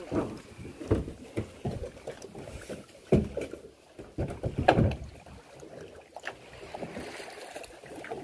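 Irregular knocking and bumping in a small boat, with the loudest thumps about one, three and four-and-a-half seconds in.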